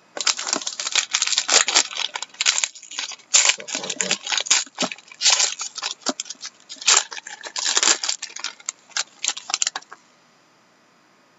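Hockey card pack packaging being torn open and handled: irregular crinkling, crackling and clicking rustles of wrapper and cards, stopping about ten seconds in.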